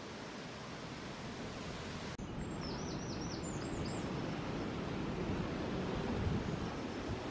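Wind noise on the microphone, a steady rumbling hiss that grows louder, with a small songbird singing a short phrase of quick repeated high notes about two and a half seconds in.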